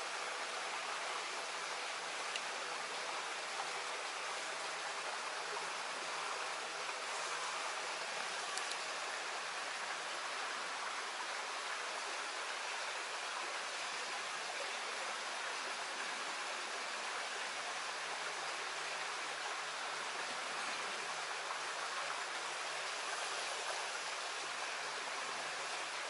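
Small stream flowing: a steady, even rush of running water with no breaks.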